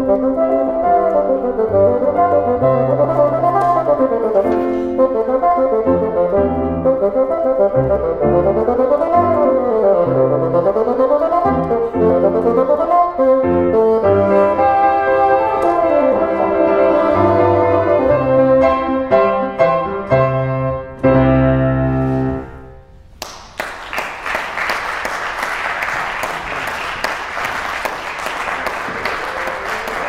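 Bassoon with piano accompaniment playing fast running passages, closing on a held final note about three quarters of the way through. An audience then breaks into applause.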